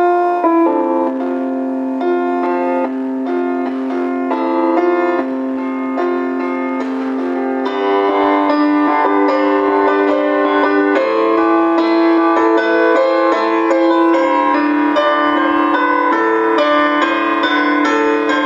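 Slow instrumental piano music: held chords with a melody over them, the notes changing about every second.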